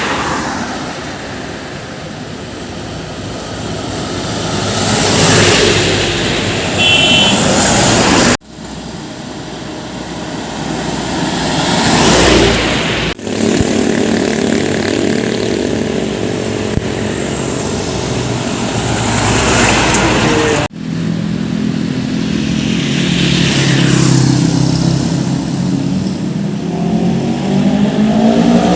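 Heavy trucks passing close by on a road, heard in several short clips joined by abrupt cuts: each passes with a swell of tyre and engine noise that then fades. In the later clips the trucks' engines hum steadily, and near the end one engine speeds up with a rising pitch.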